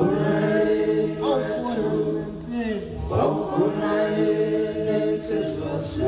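Soundtrack music of voices chanting together in long held chords, two sustained phrases of about three seconds each.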